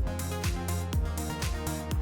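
Background electronic music with a steady beat, about two kick-drum strokes a second under held synth chords.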